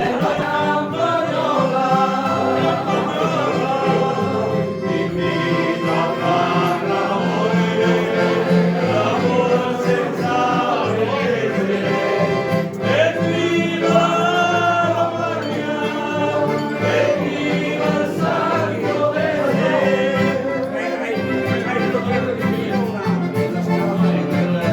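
Music with singing over an instrumental accompaniment, the melody rising and falling throughout.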